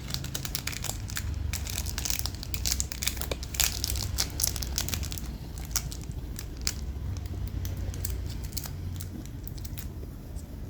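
Plastic wrapping crinkling and crackling as it is handled, a dense run of quick crackles, over a low steady hum.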